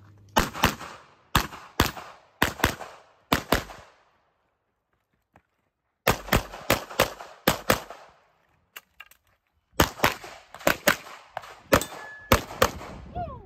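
9mm pistol fired in rapid strings of sharp shots, mostly in quick pairs (double-taps), in three bursts with short pauses between.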